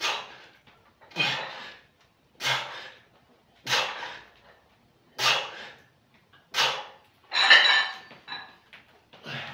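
A man's forceful exhalations, one short huff with each repetition of a heavy standing barbell overhead triceps extension, about every second and a half, six times. Near the end comes a louder burst with a metallic clink as the loaded barbell is brought down.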